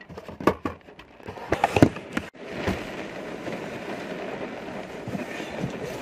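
Heavy rain on a car's windscreen and body, heard from inside the car, with wind. A few sharp knocks come in the first two seconds, then a brief gap, and after it a steady rush of rain.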